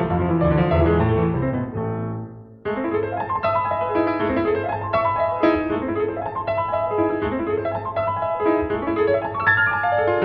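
Background piano music. It dies away briefly about two and a half seconds in, then starts up again.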